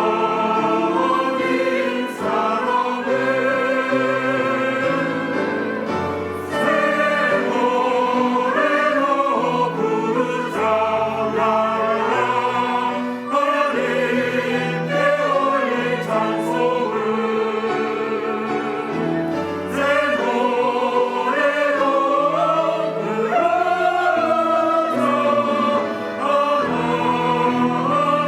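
Church choir singing a hymn anthem in several parts, with sustained notes and vibrato over low held chords.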